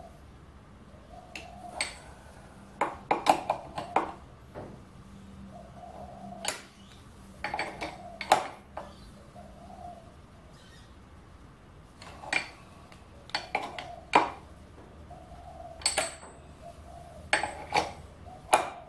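Metal tools and parts clinking and knocking at a metal lathe while a tap is being set up, in scattered groups of sharp clinks, some with a short ring.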